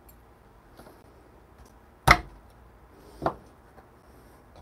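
Two sharp metal knocks, the first the louder, a little over a second apart, as stainless espresso puck-prep tools are handled: the dosing funnel is lifted off the portafilter and set down, and the next tool is picked up. Before them comes faint scratching of a WDT needle tool stirring the grounds.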